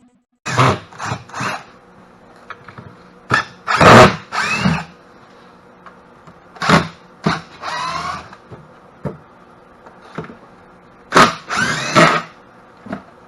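A power drill or driver run in a dozen or so short bursts, each under a second, with its motor whine rising and falling in pitch, as when backing screws out of a box.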